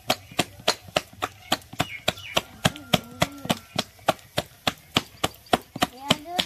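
Ground urad dal (biulir dal) paste beaten by hand in a steel plate: wet slaps about three a second, in an even rhythm. The beating whips air into the batter until it is light enough to float in water, ready for frying into ras bora.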